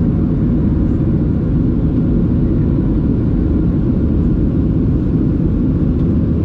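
Steady, loud cabin rumble of a Boeing 737-700 under power, the drone of its CFM56 turbofan engines and rushing air as heard from inside the passenger cabin.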